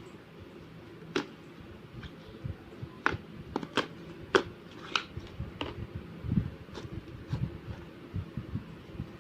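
Slime being handled: irregular sharp clicks and pops with soft low squishes, over a steady low hum.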